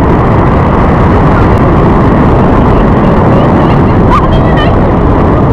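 Loud, steady wind buffeting the camera microphone in flight, mixed with the paramotor's engine and propeller running.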